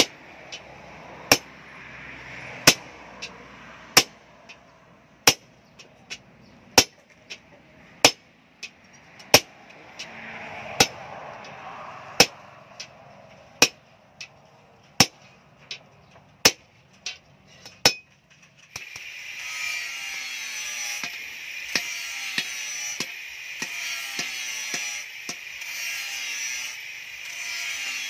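Hand hammer striking red-hot leaf-spring steel held in a pipe jig, folding it into a spring eye: about a dozen sharp metal blows, evenly spaced roughly every second and a half. About two-thirds of the way in, the blows stop and a steady high hiss with lighter taps takes over.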